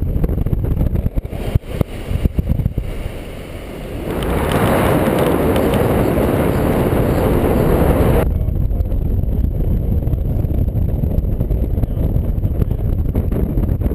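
Airflow buffeting the microphone of a paraglider pilot's harness-mounted camera in flight: a steady low rumble, with a louder, hissier rush of wind from about four to eight seconds in that cuts off suddenly.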